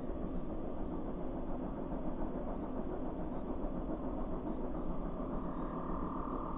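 Tractor engine running steadily, with a faint higher tone coming in near the end.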